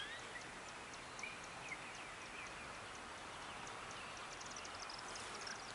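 Faint outdoor background hiss with scattered bird chirps and high ticks: a quick rising chirp at the start and a rapid run of ticks near the end.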